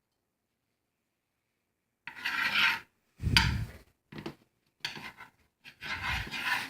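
A utensil scraping and rubbing across a frying pan in about five rough, irregular strokes, starting about two seconds in.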